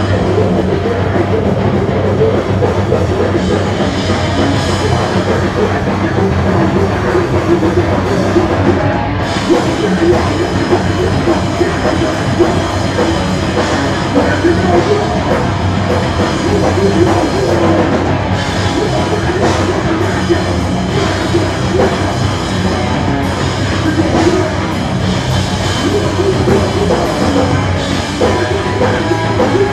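Live rock band playing loud, with drum kit, guitars and a vocalist shouting into the microphone, heard from within the crowd.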